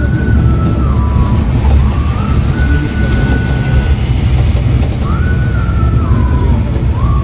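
Shivneri intercity bus running on a highway, heard from inside the cabin: a steady low engine and road rumble. Over it a thin tune glides up and down, repeating a few seconds apart.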